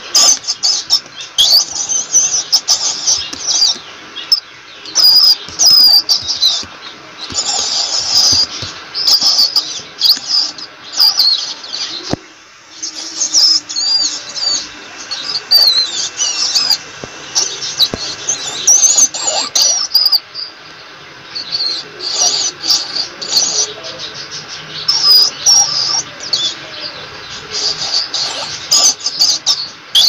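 Rats squeaking: rapid, high-pitched squeaks and chirps in busy spells, with sharp clicks among them and brief lulls about a third and two-thirds of the way through.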